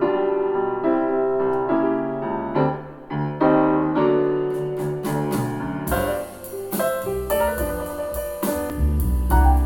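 Piano music, with drums and bass coming in about six seconds in.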